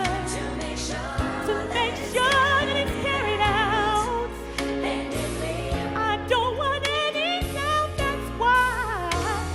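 Gospel pop song: a woman's voice sings wordless, wavering runs with vibrato over a steady bass and drum beat.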